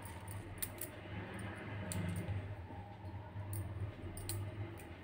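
Faint scattered clicks and soft rustling of hands trimming a bunch of coriander with a small knife, over a low steady hum.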